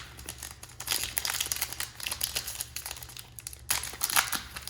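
Foil wrapper of a football trading-card pack crinkling and tearing as it is opened, a run of irregular crackles that gets louder about a second in and again near the end.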